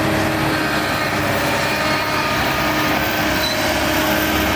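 Diesel engine of heavy earthmoving machinery running steadily under work, with a constant mechanical whine over it.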